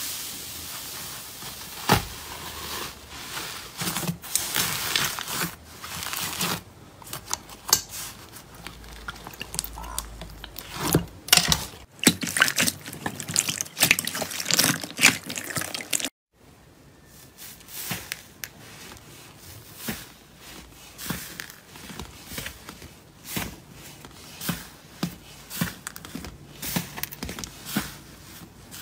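Hands pressing, squeezing and stretching soft, wet slime: irregular squelches and sticky pops as trapped air is squeezed out. The sound breaks off for a moment about sixteen seconds in, then goes on as puffy slime is poked and torn.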